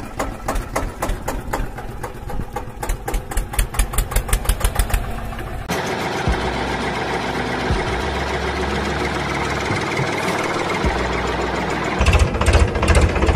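Tractor-style diesel engine running with a rapid, even chug; about six seconds in it changes abruptly to a steadier, smoother running sound, and the chugging returns near the end.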